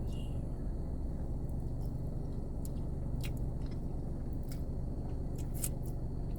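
Close-miked chewing of creamy chicken Alfredo, with wet mouth clicks and smacks scattered over a steady low hum.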